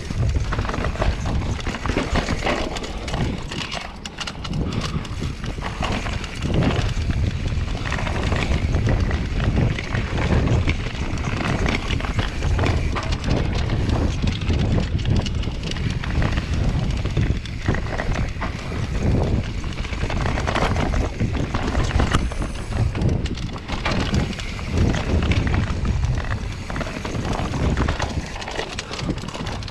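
Mountain bike rattling and clattering as it rides down a rough, rocky dirt singletrack: a steady run of knocks and clicks from the tyres and frame over stones, over a low rumble.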